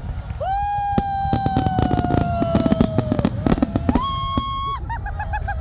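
Fireworks going off in rapid cracks and bangs. Over them, long pitched whistle-like tones: one that falls slowly over about three seconds, then a higher steady one, then a short wavering one near the end.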